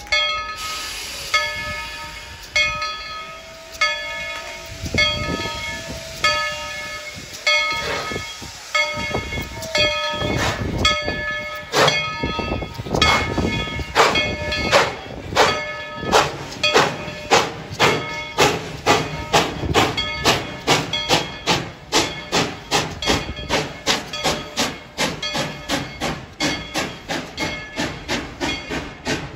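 Narrow-gauge steam locomotive No. 190 of the Tweetsie Railroad starting away from the station. Its bell rings with even strikes about one and a half a second. Then exhaust chuffs begin about eight seconds in and come faster and faster as the train gathers speed, with steam hissing.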